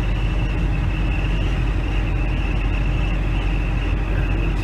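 Steady road and engine noise heard from inside a vehicle cruising at highway speed: a constant low rumble with a thin, steady high whine over it.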